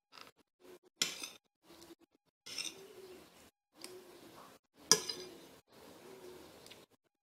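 Eating sounds: a spoon clicking and sharp mouth smacks, the loudest about one second in and near five seconds, between short low gliding tones.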